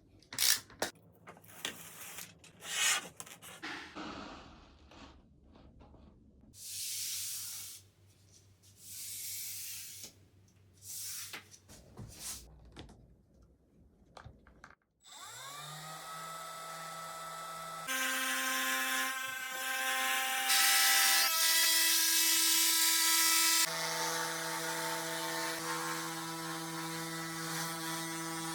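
A series of short rubbing, scraping bursts of hand work, then about halfway in a power tool's motor spins up with a rising whine and runs steadily, louder for a few seconds in the middle of its run.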